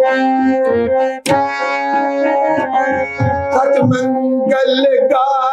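Music: held keyboard-like notes over low drum hits, with a wavering melody line coming in near the end.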